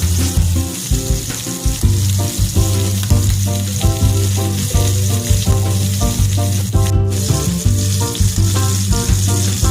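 Food sizzling as it fries in a hot pan, mixed with background music that has a steady rhythm and bass line. The sizzle cuts out for an instant about seven seconds in.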